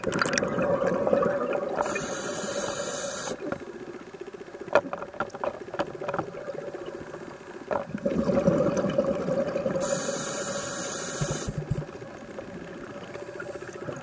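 Scuba diver breathing through a regulator underwater: two breath cycles about eight seconds apart, each a gush of exhaled bubbles with a short hiss of air through the regulator.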